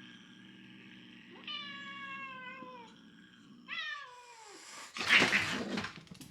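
A cat growling low, then giving two drawn-out yowls that fall in pitch, then one loud hiss about five seconds in: a defensive threat display from the former stray cat.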